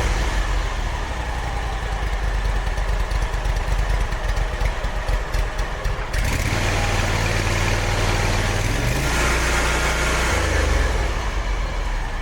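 Kawasaki FX850 V-twin mower engine running steadily with freshly adjusted valves, no longer clattering from loose rocker arms. Its note shifts about halfway through.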